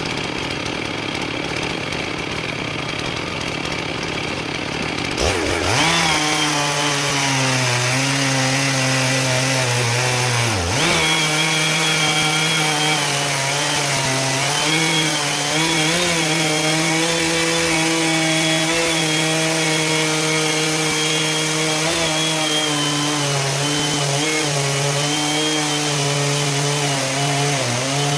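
Two-stroke chainsaw on a homemade chainsaw mill, ripping a log into lumber. It revs up sharply about five seconds in and then holds at high revs under load, with a brief dip near eleven seconds.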